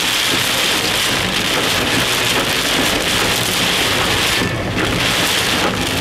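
Heavy rain falling on a car's windshield and roof, heard from inside the car as a loud, steady, dense hiss.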